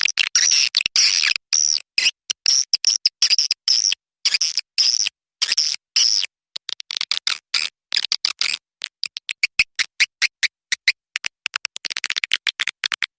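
Swiftlet calls from a lure-sound recording: rapid high-pitched chirping trills in short bursts with dead-silent gaps between them. The bursts come quicker and shorter in the second half.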